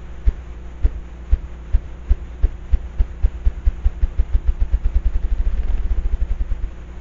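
Male ruffed grouse drumming: deep wing-beat thumps, slow at first and speeding up into a fast whir that stops shortly before the end, the male's territorial display.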